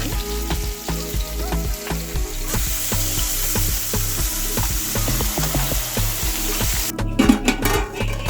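Seasoned curry beef sizzling in a hot pot, a steady frying hiss that cuts off about seven seconds in. Background music with a steady bass line plays underneath.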